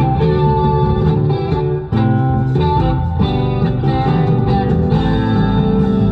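Guitar-led rock music with no singing, briefly dropping away about two seconds in.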